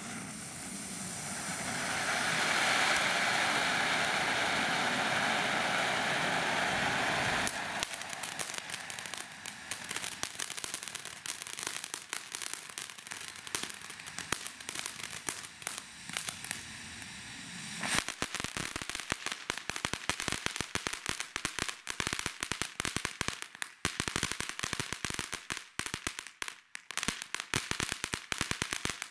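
Phantom Fireworks Fracture Fountain, a ground fountain firework, burning. For the first seven seconds or so it gives a steady, swelling hiss of sparks. It then crackles continuously with rapid, irregular pops, which grow denser about two-thirds of the way through, and stops abruptly.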